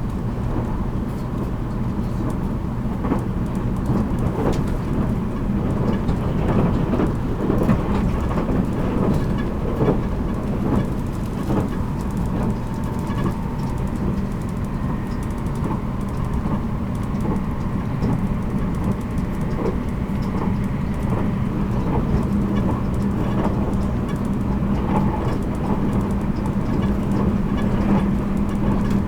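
Running noise of a JR Kyushu 783 series electric train, heard in motor car MoHa 783-13 at speed. A steady rumble of wheels on rail and traction equipment, with a low hum throughout and a faint higher tone in the middle.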